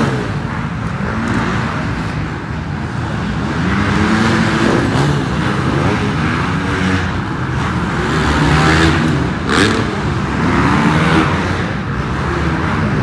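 Several dirt bike engines revving on a race track, their pitch rising and falling as they accelerate and shift, overlapping one another.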